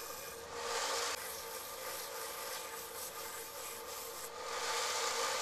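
Small narrow-belt benchtop sander running with a steady hum while micarta knife scales are ground against the belt, sanding them flush with the knife's steel. The grinding rasp grows louder about half a second in and again from about four seconds in, as the work is pressed harder to the belt.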